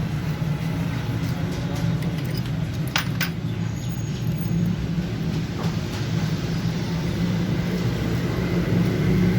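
Steady low drone of engine noise, with two sharp metallic clinks about three seconds in, as metal engine parts are handled.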